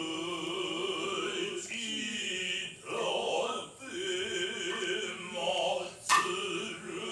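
Noh chant: male voices in a slow, held, slightly wavering chant, with a single sharp knock about six seconds in.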